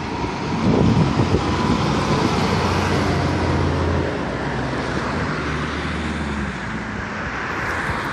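Road traffic passing close by: a fire engine drives past, loudest about a second in, followed by the steady low drone of vehicle engines.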